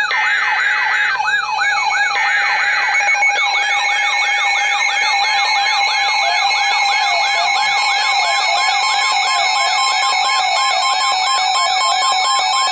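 Emergency Alert System weather-radio alert: two buzzy data bursts of the SAME header in the first three seconds, then the steady 1050 Hz NOAA Weather Radio warning alarm tone. Over it all a yelping siren sweeps up and down about three to four times a second.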